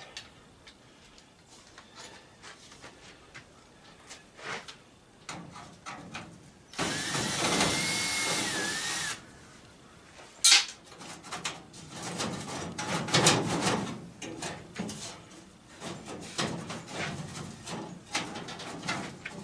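Power drill running for about two and a half seconds, driving at a screw in the furnace's sheet-metal cabinet. One sharp metallic click follows, then a series of knocks and rattles from metal parts being handled.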